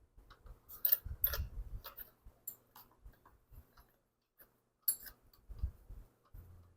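Scattered small metallic clicks and taps as a spark plug is gapped with a spark plug gapper. The sharpest clicks come about a second in and again near five seconds.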